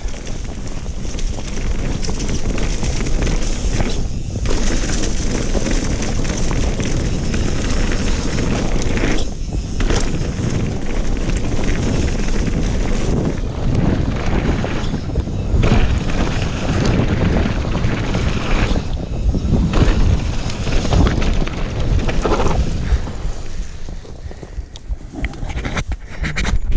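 Wind rushing over the camera microphone and the tyres and frame of a Rocky Mountain Slayer full-suspension mountain bike rumbling and rattling over a dirt trail on a fast downhill run. The noise eases briefly about four times.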